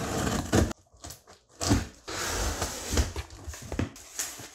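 Open scissors blade drawn along the packing tape on a large cardboard box, slitting the tape in two long rasping strokes with knocks against the cardboard. Near the end the cardboard flap is pulled open.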